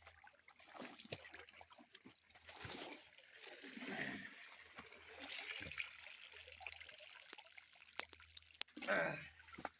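River water splashing and trickling as clothes are washed by hand in the stream, with a few sharp clicks and a brief louder sound near the end.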